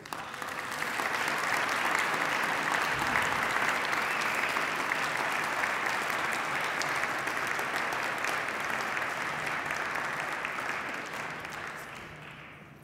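Audience applauding, building within the first second, holding steady, then dying away over the last few seconds.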